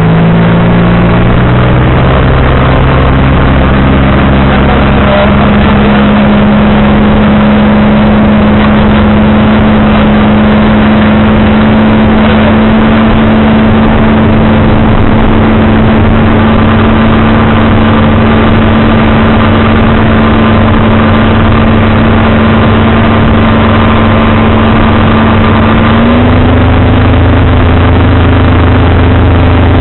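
Outboard motor of a small cabin fishing boat running under way, with a steady rush of wind and water. Its pitch climbs over the first few seconds, holds steady, and steps up slightly near the end.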